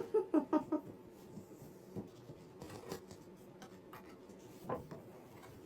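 Faint rubbing and a few soft clicks of paper being handled, as of a book page being turned, after a voice trails off at the start.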